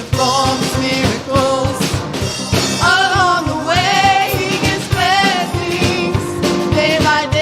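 Worship band playing, with drums keeping a steady beat under a singer's wavering held notes.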